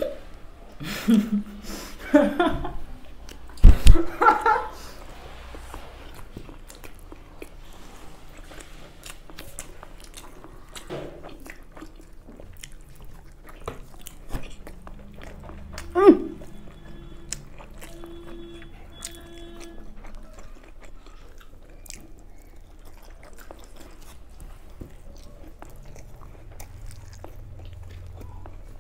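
People eating steamed momo dumplings: close mouth sounds of biting and chewing, with many small wet clicks. In the first few seconds there are some short vocal sounds and one loud thump, and another short vocal sound comes about sixteen seconds in.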